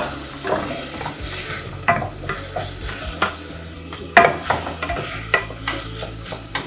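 Beef pieces sizzling as they brown in a little oil in a stainless steel saucepan, while a wooden spatula stirs and scrapes them, knocking against the pan at irregular moments, most sharply at the start and about four seconds in.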